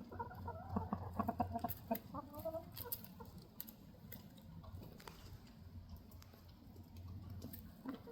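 Chicken clucking in short repeated notes through the first few seconds, then a quieter stretch with a few faint clicks.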